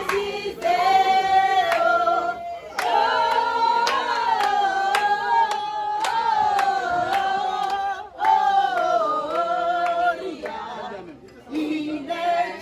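A group of voices singing together in long, held notes, with hand claps, and a brief lull near the end.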